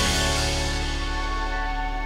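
Background music. A drumbeat stops right at the start, leaving held chords ringing on, with a high wash fading away over the first second or so.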